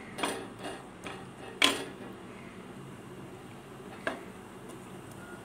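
Spatula stirring cashews frying in ghee in a nonstick pan, tapping against the pan a few times, the loudest tap about one and a half seconds in, over a faint steady frying hiss.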